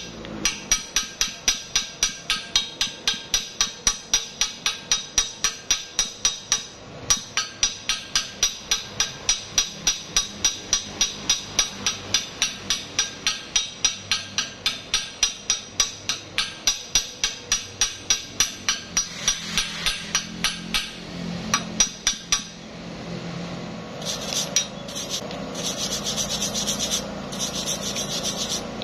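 Small hammer tapping rapidly on a fresh steel fillet weld to knock off the slag, about three or four blows a second, with a brief break about seven seconds in. The tapping stops about 22 seconds in and gives way to steady scrubbing of a wire brush cleaning the bead.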